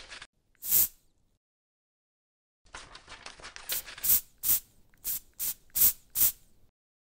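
A quick rattle of ticks, then one short hiss. About three seconds later the rattle comes again and gives way to seven short, sharp hisses in a row.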